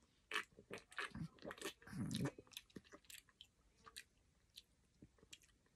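A person gulping energy drink from a can, several swallows in quick succession over the first two seconds or so, then a few faint clicks.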